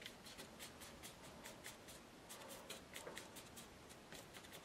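A paintbrush dabbed and dragged quickly across watercolour paper: many faint, short, scratchy strokes, several a second.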